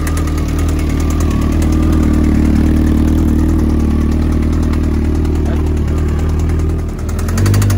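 Kawasaki ZX14's inline-four sport-bike engine idling steadily with a knock, briefly revved near the end. The knock is diagnosed as a bad connecting rod, possibly in cylinder number one.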